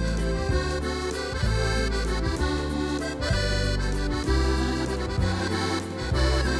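Yamaha Tyros 2 arranger keyboard playing its French Musette accordion voice: a musette accordion melody over a bass accompaniment whose notes change every second or so.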